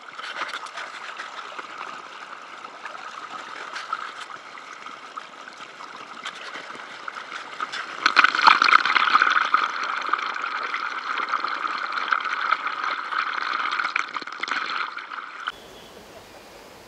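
Water gurgling and splashing close to the microphone as a kayak moves through the water under paddle, with small splashes from the strokes; it grows louder about eight seconds in and cuts off abruptly near the end.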